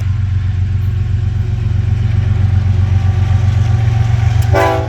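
Diesel freight locomotive running loud and close as it passes, a steady low engine drone. Near the end the locomotive's air horn starts to blow, a chord of several tones.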